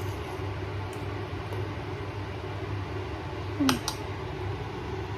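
Steady low mechanical hum with a faint hiss, with one brief sharp sound about three and a half seconds in.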